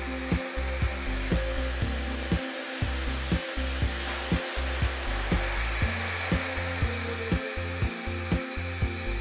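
SEBO Airbelt K canister vacuum cleaner running: a steady airy motor rush under background music with a regular beat.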